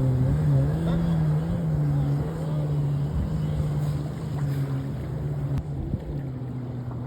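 Jet ski engine running with a steady drone that wavers slightly in pitch, gradually fading as the craft moves away.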